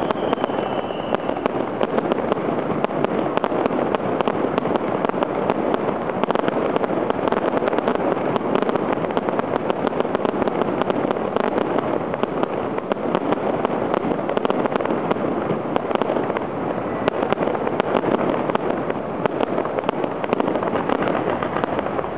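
Fireworks display: a dense, unbroken crackling and popping of aerial shells and crackle stars bursting overhead, with many sharp pops throughout.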